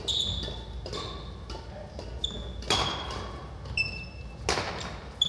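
Badminton rally: rackets smacking the shuttlecock about five times, with sharp cracks that ring briefly in a large hall. Between the hits, court shoes give short high squeaks on the wooden floor.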